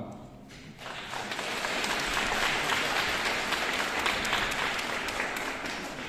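Audience applauding, starting about a second in and fading near the end.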